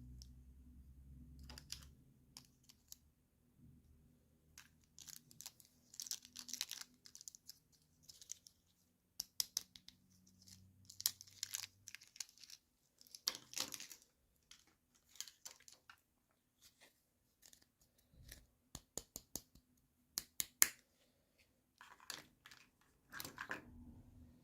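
Unboxing of small plastic toys: packaging crinkling and tearing in short bursts, with light clicks and taps of small plastic pieces being handled.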